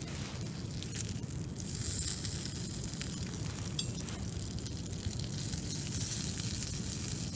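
Bacon sizzling and frying in a cast-iron skillet over a small wood stove. A few brief clicks come from tongs lifting the pieces out of the pan.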